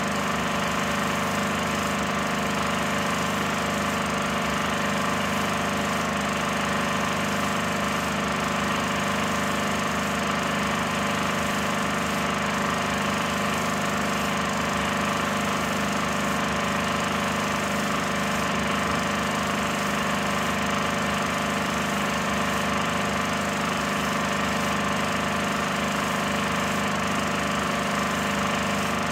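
16mm film projector running: a steady mechanical whir of its motor and film transport, with a constant hum and no change in speed.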